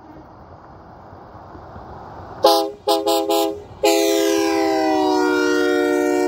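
Nathan Airchime K3LA three-chime train horn on a passing pickup truck sounding a loud chord: one short blast, three quick toots, then a long blast held to the end, its pitch sagging slightly as the truck goes by. Engine and tyre noise of the approaching truck rise before the horn.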